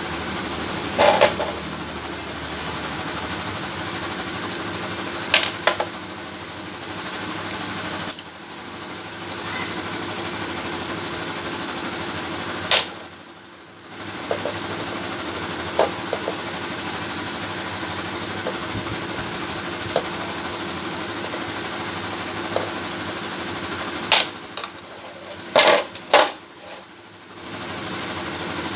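A small machine running steadily, broken by a few sharp clicks and knocks and by brief dips, most clearly about halfway through and again near the end.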